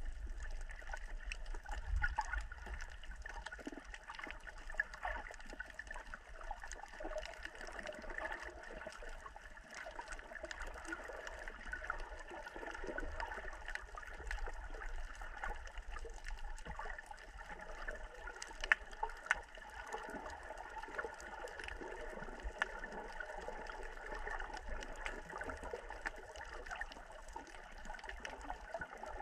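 Water gurgling and sloshing close to the microphone, with many small scattered clicks.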